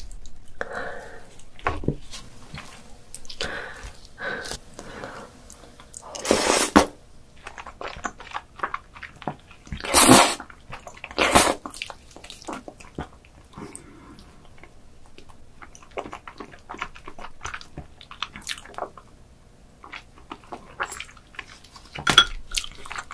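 Close-miked eating of raw crab: wet clicking and smacking of chewing throughout, with loud slurps as the meat is sucked from the shell, about six and a half seconds in and twice more around ten and eleven seconds.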